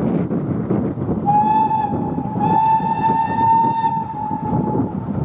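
Steam locomotive whistle sounding a short note and then a longer one, about four seconds in all, over the rumble and exhaust of the engine working as it approaches with its train.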